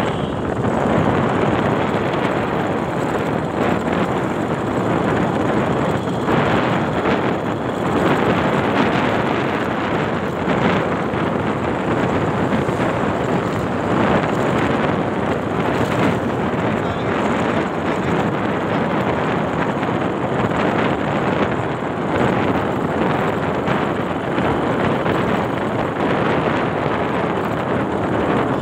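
Steady wind rush buffeting the microphone while riding along a road on a moving two-wheeler, with road and vehicle noise mixed in.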